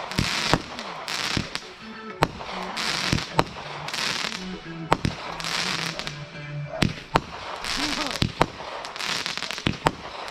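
Consumer aerial fireworks going off in quick succession: many sharp bangs as shells burst, with bursts of crackling hiss between them, over and over.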